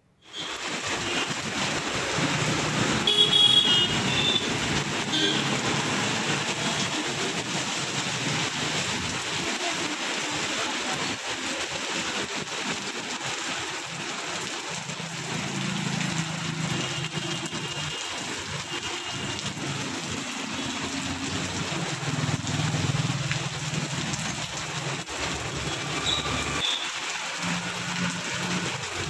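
Steady rain falling on a wet road, with vehicles passing now and then. A brief high-pitched sound stands out about three seconds in.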